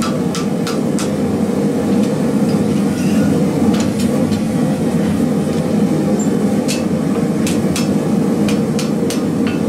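Hand hammer striking a red-hot 11/16-inch steel bar on an anvil, bending it into a holdfast: a couple of sharp blows near the start, two about four seconds in, then a quick run of two to three blows a second over the last three seconds. A steady low roar runs underneath the blows.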